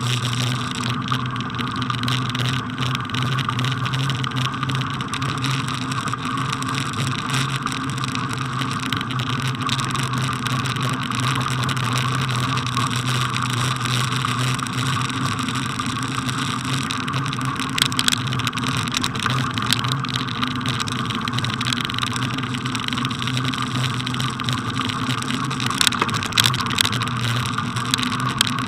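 Steady rolling noise of a bicycle ridden over packed snow, picked up by a camera mounted on the bike, with a few sharp knocks from bumps about two-thirds of the way through and again near the end.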